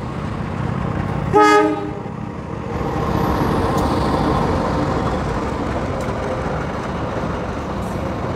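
Diesel locomotive of a KAI passenger train gives one short horn blast about a second and a half in. The locomotive and its coaches then rumble steadily past on the rails, louder from about three seconds in. The footage is sped up 1.25 times, which raises the pitch.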